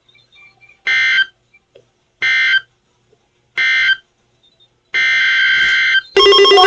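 Emergency Alert System (SAME) digital data bursts: three short, identical electronic screeches about a second and a half apart, the end-of-message code closing a severe thunderstorm warning. About five seconds in, a longer burst of the same kind starts the header of a new alert. Just after six seconds, a louder electronic alert sound with several tones cuts in.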